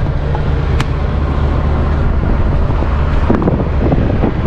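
Steady low drone of a running vehicle's engine and road noise, with wind noise on the microphone and a few light clicks and rattles.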